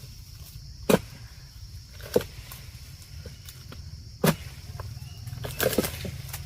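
Sharp chopping strikes of a harvesting chisel (dodos) cutting at an oil palm: three single blows spaced a second or two apart, then a quick run of strikes near the end, over a steady high buzz.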